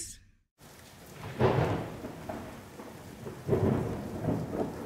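Steady rain with rolls of thunder that swell about a second and a half in and again about three and a half seconds in, after a brief moment of silence at the start.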